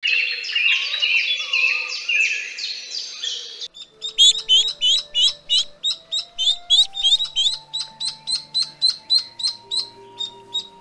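Dense, overlapping high bird chirping for the first few seconds. Then, from about four seconds in, ducklings peeping in a quick, regular run of high peeps, about three a second, over soft sustained music notes.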